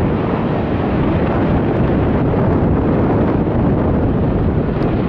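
MBB Bo 105 twin-turbine helicopter flying past low overhead, its rotor and engines making a loud, steady rumble, mixed with wind buffeting the microphone.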